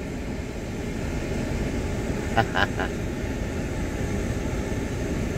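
Vehicle engine idling, a steady low rumble heard from inside the cab. About two and a half seconds in, three quick high chirps cut through it.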